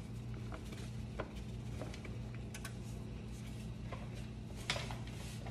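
Quiet kitchen room tone: a steady low hum with a few faint, scattered clicks and light taps, one a little clearer near the end.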